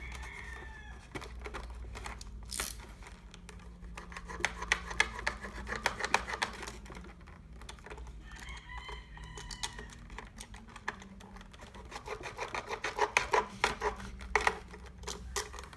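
Plastic packaging being handled and pulled off a gumball machine, a dense run of crinkles and rapid clicks that comes in two busier stretches. A rooster crows briefly near the start and again about halfway through.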